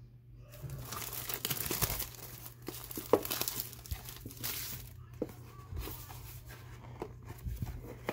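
Plastic shrink-wrap crinkling as it is crumpled in the hand, with tearing and handling of a cardboard trading-card box as it is opened. There are flurries of crackling and a few sharp ticks.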